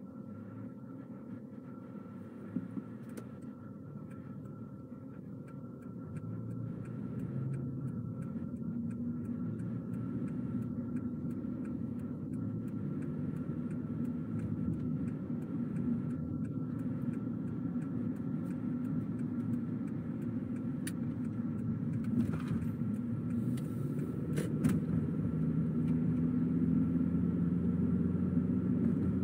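Car on the road: a steady low rumble of engine and tyre noise that grows gradually louder, with a couple of short clicks about three quarters of the way through.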